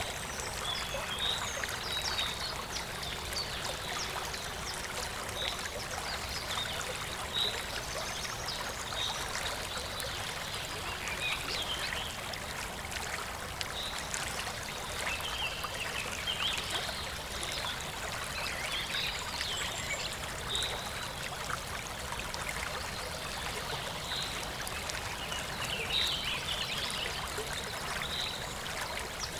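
Running water from a stream or brook flowing steadily, with birds chirping over it in short, high, repeated notes.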